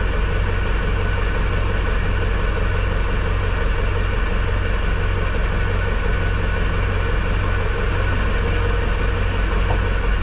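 Tractor engine idling steadily with a constant low hum, heard from inside the operator's cab.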